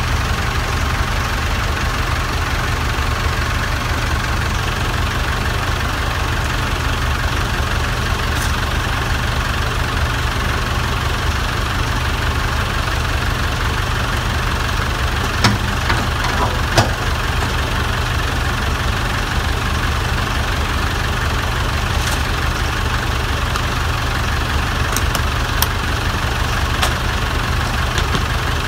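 Lavatory service truck's engine idling steadily, with a few light clicks midway and near the end.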